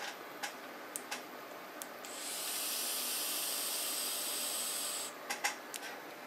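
A steady hiss lasting about three seconds, starting about two seconds in and cutting off fairly sharply, with a few sharp clicks before and after it.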